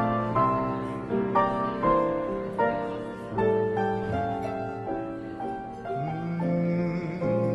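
Solo piano playing a slow, gentle ballad accompaniment, with chords struck about once or twice a second that ring and fade between strikes.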